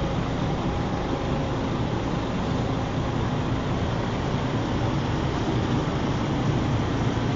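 Steady road traffic and engine noise, even throughout with no distinct events.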